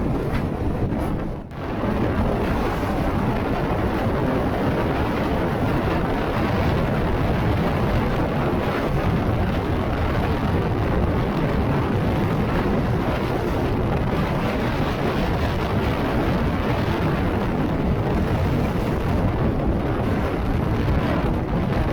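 Very strong wind buffeting the camera's microphone: a continuous low rumble of wind noise, dropping away briefly about a second and a half in.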